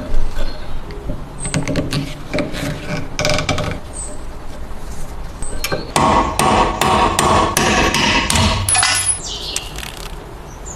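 Hammering: repeated hammer strikes, with a fast, dense run of ringing blows in the middle.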